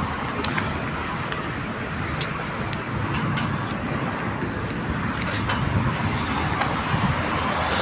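Steady road traffic noise from a nearby street, with a few light clicks.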